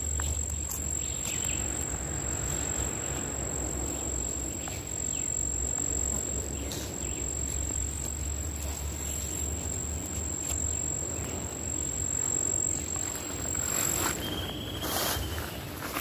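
An insect's steady, high-pitched trill held unbroken, then cutting off near the end, followed by a short bird whistle that falls slightly in pitch.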